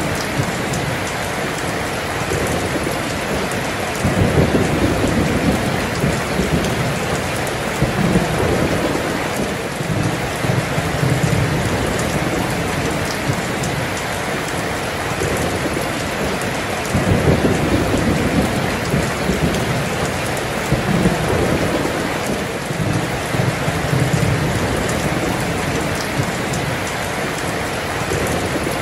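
Heavy rain pouring down in a dense steady hiss, with low rolls of thunder swelling and fading several times, a few seconds apart.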